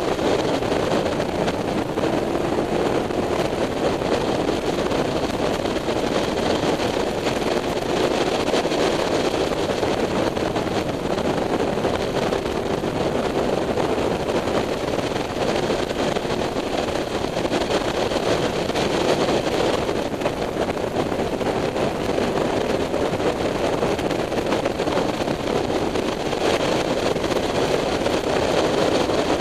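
Honda CBR600F3 inline-four motorcycle engine running at road speed under a steady rush of wind on the microphone, the engine note wavering slightly.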